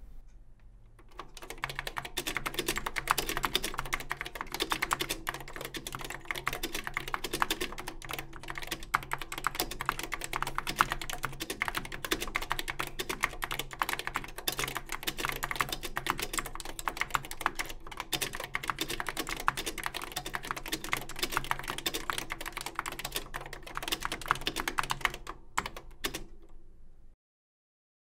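Fast typing on a Chyron Telesystems 4044 keyboard: Key Tronic foam-and-foil linear switches under thick double-shot ABS keycaps in an all-steel case, giving a dense, unbroken run of keystroke clacks. It starts about a second in and stops suddenly about a second before the end.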